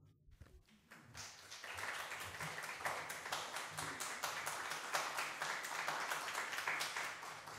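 Audience applauding: many hands clapping, starting about a second in and building to steady applause.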